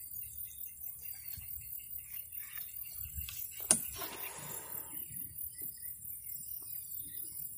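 Steady high-pitched pulsing chirr of insects, with one sharp click a little past halfway that rings briefly.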